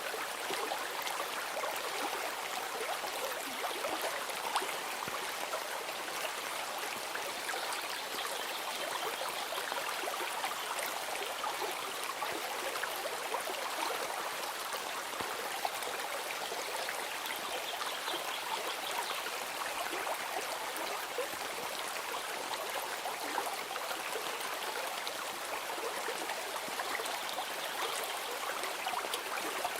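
Running water of a stream: a steady, even rush and trickle without a break.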